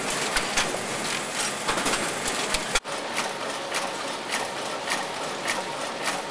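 Printing-shop machinery running: a steady mechanical whir with irregular sharp clicks and clacks. About three seconds in the sound breaks off abruptly and resumes as the running of a small offset printing press.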